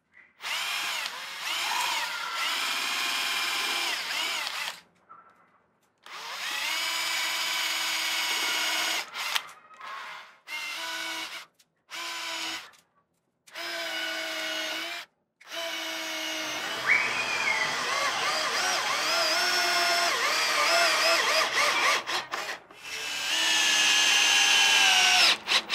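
Cordless drill working upward into the wooden underside of a boat hull, run in a string of bursts of a few seconds each with short pauses between. Its motor whine rises and falls in pitch, and the long run near the end is the loudest.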